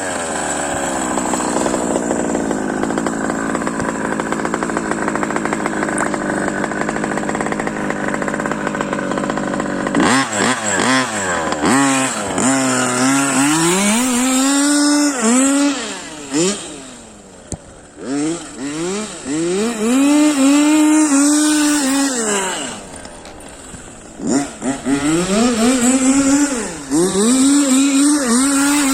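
Small two-stroke petrol engine of a 1:5 scale Losi 5T RC truck with a BZM exhaust, held at high revs for the first ten seconds or so, then revved up and down again and again, dropping back to a steady idle between the blips.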